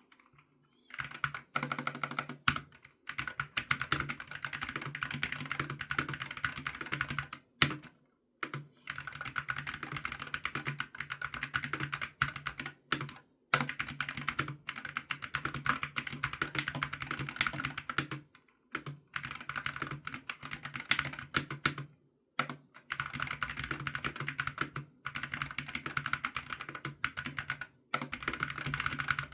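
Typing on an Akko x MonsGeek FUN60 Max mechanical keyboard with magnetic switches: quick, dense runs of keystrokes broken by short pauses every few seconds.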